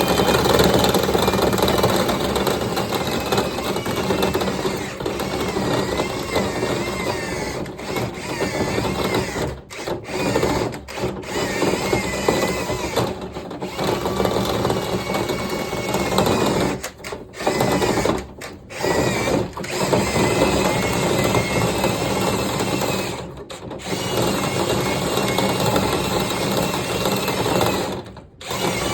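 Power drill spinning a rotary cleaning brush through a dryer vent duct, a steady whirring whose pitch wavers. It stops for a moment several times before starting up again.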